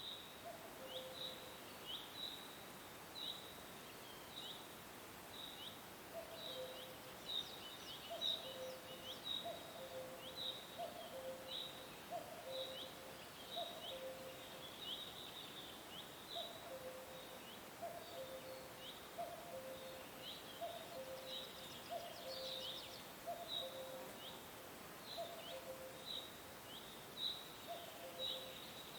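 Nature soundscape of calling animals. Short, high, falling chirps repeat a few times a second over a low two-note call that repeats about once a second, with a faint steady hiss beneath.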